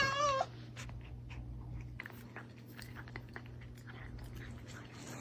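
A cat meows once, briefly, at the very start, then only faint scattered small clicks and crunching sounds follow.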